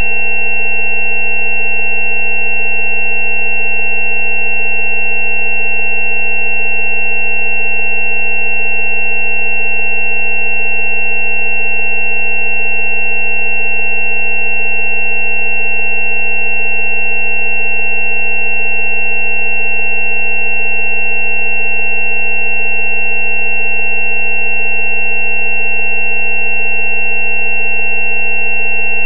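Continuous synthesized sine-wave tones, loud and unchanging: a low 190 Hz frequency-therapy tone with several higher pure tones layered over it, the highest of them the loudest.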